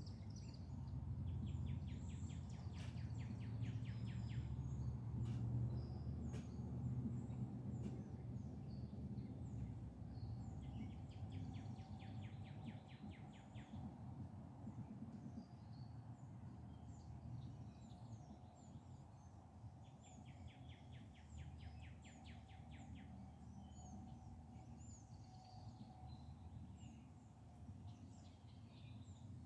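Outdoor ambience of birds chirping, with a rapid trill that repeats three times about nine seconds apart, over a low steady rumble.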